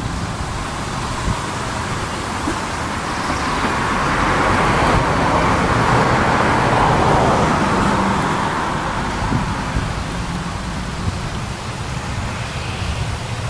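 Road traffic: a passing vehicle's noise swells to its loudest around the middle and fades again, over a steady low rumble.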